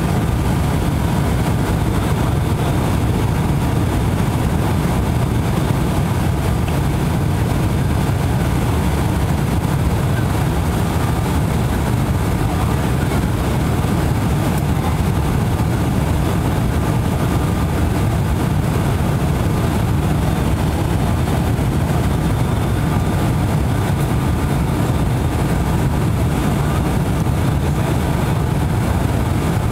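Steady cabin drone of an ATR 72-500's twin Pratt & Whitney PW127 turboprops and propellers, heard from inside the passenger cabin on approach to landing. The low drone is heavy and unchanging, with a faint steady whine above it.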